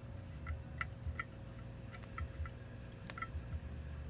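Small, irregular metallic ticks, two or three a second with one sharper click about three seconds in, as a 4-40 tap is turned by hand with a T-handle tap wrench, cutting threads into a metal plate.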